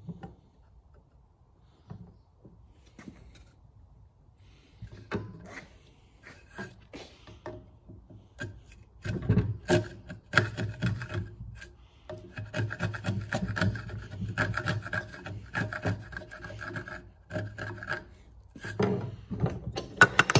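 A hand chisel paring across the bottom of a housing joint trench in softwood, a run of scraping, shaving strokes that grows busier and louder from about a third of the way in. Near the end come a few sharp wooden knocks as the piece is taken out of the vise.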